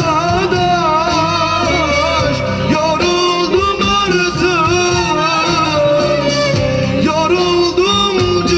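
A man singing live into a microphone over amplified backing music, drawing out long wavering notes in a Turkish folk-pop song.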